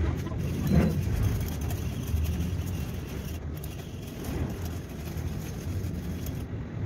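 Steady low rumble of background road traffic, with a brief faint sound about a second in.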